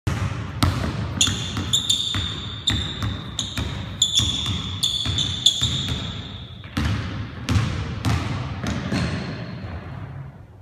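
Basketball dribbled on a hardwood gym floor, bounces coming about every half second and echoing, growing fainter near the end as the ball moves away. High sneaker squeaks on the hardwood are mixed in during the first half, as the player cuts through the cones.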